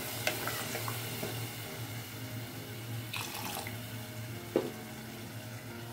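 Coconut milk sizzling and bubbling as it comes up to heat in a pot of fried spice paste and goat meat, a steady watery hiss. A wooden spatula knocks against the pot a few times, most sharply about four and a half seconds in.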